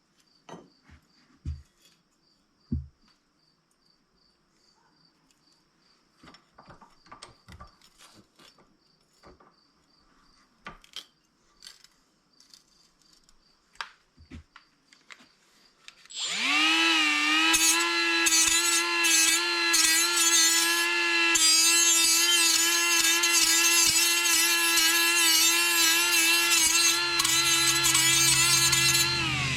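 Quiet scattered clicks and knocks of handling, with faint crickets chirping steadily. About halfway through, an angle grinder starts up and runs loud and steady with a high whine on metal, its pitch wavering slightly under load, then stops near the end.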